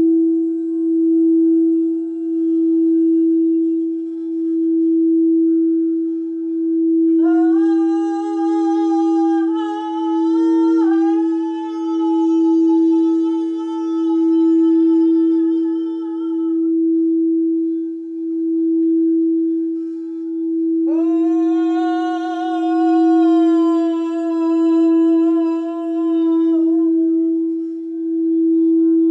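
A frosted quartz crystal singing bowl is rubbed around its rim with a mallet, giving one steady sustained tone that swells and fades about every two seconds. A woman's voice joins it twice in long held sung notes (voice toning): first for about nine seconds, then again for about six seconds near the end.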